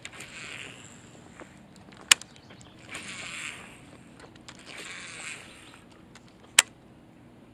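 Baitcasting reel being cast: a sharp click about two seconds in, soft rustling, the line whirring off the spool about five seconds in, and another sharp click as the reel is engaged.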